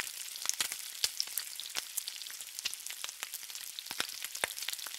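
Bacon frying on a flat-top griddle: a steady sizzle with many sharp, irregular pops and crackles.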